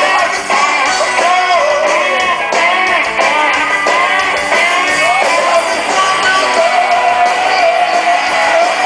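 Live rock band playing: fast electric guitars under a sung vocal line, short swooping phrases, then one long held note in the second half.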